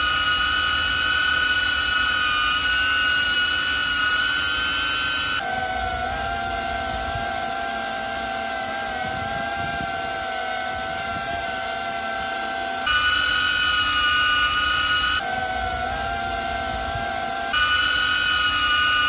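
A DJI Avata FPV drone hovering, its ducted propellers giving a loud, high whine. It cuts abruptly back and forth with a DJI Avata 2 hovering, which gives a noticeably quieter, lower-pitched whine. The Avata 2 comes in about five seconds in, the Avata again at about thirteen seconds, the Avata 2 at about fifteen, and the Avata at about seventeen and a half.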